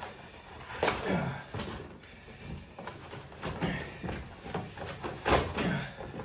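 Cardboard shoe box being handled and opened by hand: a series of rustles, scrapes and knocks, the loudest about a second in and again about five seconds in.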